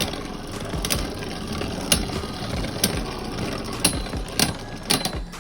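Two Beyblade spinning tops, Vanish Fafnir and Mirage Fafnir, spinning and grinding against each other in a plastic stadium: a steady whirring rattle broken by sharp irregular clicks as they collide.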